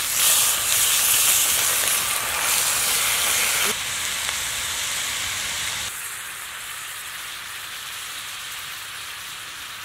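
Thinly sliced pork belly and onions sizzling in a hot cast-iron skillet, loudest in the first few seconds as the meat hits the pan, then dropping in level twice to a steadier, softer sizzle.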